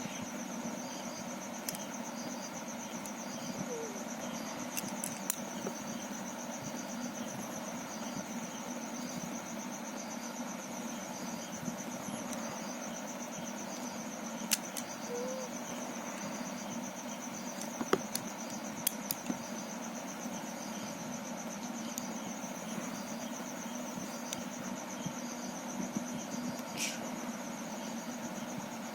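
A cricket's steady high trill runs on without a break, over a low hum. A few sharp, light clicks stand out, the loudest about eighteen seconds in.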